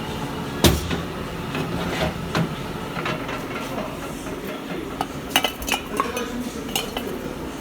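Small metal automatic-transmission parts clinking and knocking as they are handled and set down on a workbench: a series of sharp clicks, the loudest about a second in and several more close together near the end.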